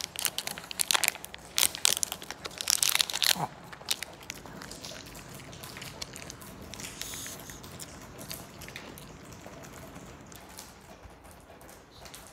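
Plastic wrapper crackling loudly as a dog chew is unwrapped for a Maltese, followed by quieter chewing as the dog works on the chew, over a steady hiss of rain.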